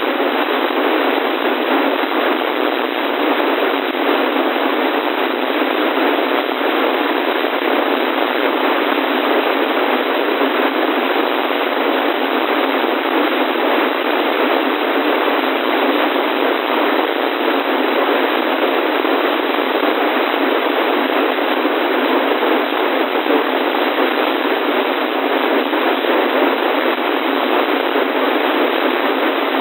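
Steady radio static: an even, unchanging hiss from a weather radio receiver with no broadcast coming through, thin and tinny with no low end.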